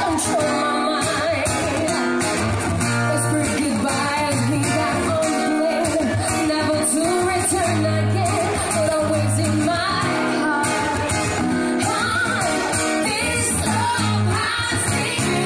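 Live band performing a song: a singer's lead vocal over guitar, drums and a steady bass line.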